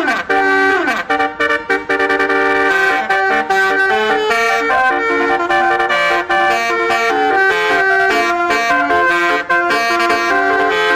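Basuri telolet horn, a multi-trumpet bus horn, playing a tune of stepped notes with several tones sounding at once. Two falling glides come in the first second.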